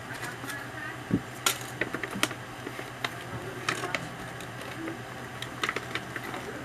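Scattered light clicks and rustles of shopping bags and purchases being handled, over a low steady hum.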